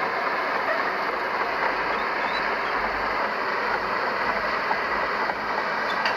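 Steady running noise of heavy earthmoving machinery, the diesel engines of a bulldozer and dump trucks working the sand fill, even throughout with no clear revving or pauses.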